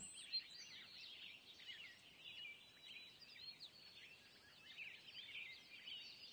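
Faint birdsong: many small birds chirping and twittering at once, in many quick, high overlapping chirps.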